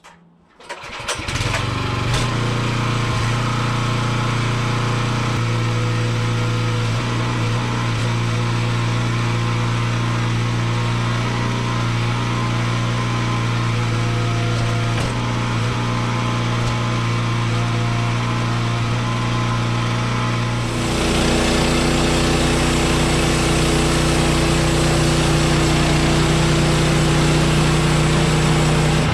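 A small gasoline engine starts about a second in and runs at a steady speed. About two-thirds of the way through, its note drops lower and gets a little louder, and it runs on steadily at the new pitch.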